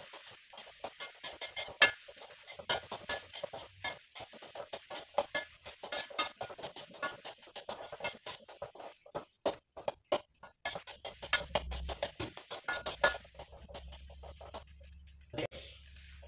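A rapid, irregular run of small clicks and crackles, thinning out near the end, with a low steady hum coming in past the middle.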